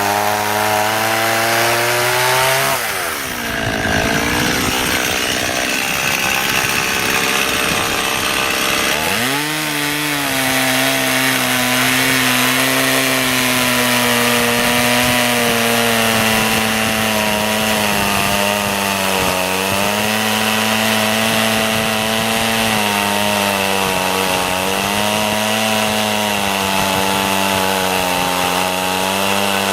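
Stihl MS 180 (018) two-stroke chainsaw running at high revs and cutting hardwood, its pitch wavering under load. About three seconds in the revs drop and stay unsettled for several seconds, then climb back a little after nine seconds.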